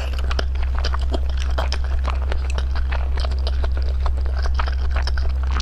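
A person chewing and biting food close to the microphone, with many small wet clicks and crunches, over a steady low hum.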